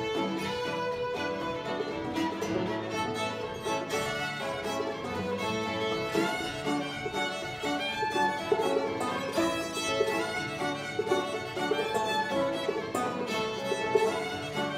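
Old-time string band playing a tune: two fiddles bowing the melody together over banjo and acoustic guitar accompaniment.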